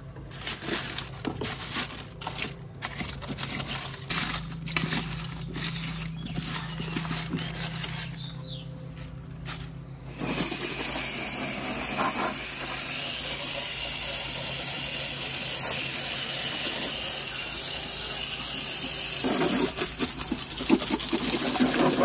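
Scattered clicks and knocks of hands working on an HVAC unit over a low hum. About ten seconds in, a steady spray of water starts: a hose rinsing the unit's coil during cleaning.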